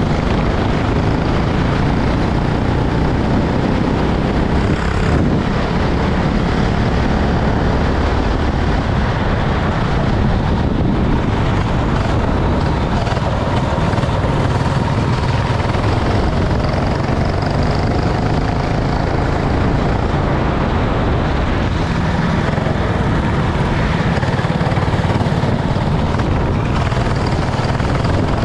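Racing kart engine running under a steady, loud rushing noise, with a faint engine whine that rises and falls in pitch around the middle.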